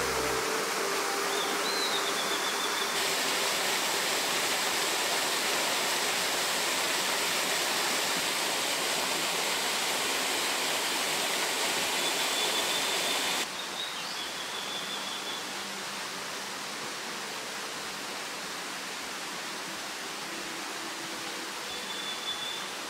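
Mountain stream rushing steadily over rocks, turning somewhat quieter about halfway through. A bird gives short high whistles about three times.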